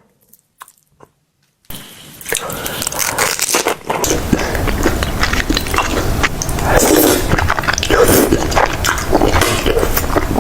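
Close-miked chewing and eating sounds, with crunches and wet mouth noises, starting about two seconds in after a short near-silent pause.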